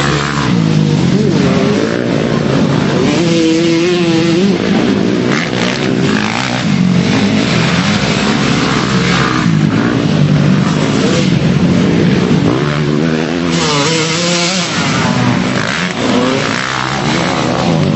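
Motocross motorcycle engines revving hard through mud, their pitch rising and falling again and again as the throttle is worked. One bike gets louder about three-quarters of the way through.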